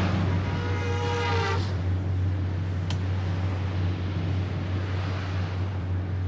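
Steady low drone of a moving car's engine and road noise heard inside the cabin. A brief held pitched tone sounds over it in the first second and a half, and there is a faint click about three seconds in.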